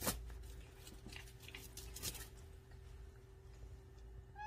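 Cats scuffling over a wand toy on a quilt: a sharp knock at the start and a few soft rustles, then a short cat call that bends slightly upward near the end and is cut off.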